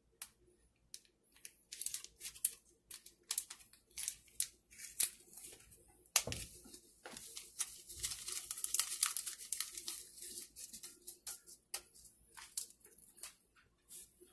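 A small plastic seasoning sachet crinkling and tearing as it is opened, then shaken out over a glass bowl: many small crackles, with a denser stretch of rustling near the middle.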